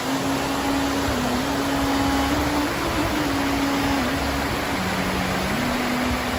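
Steady, loud rushing noise, with a low tone underneath that holds and steps up and down in pitch like a slow melody.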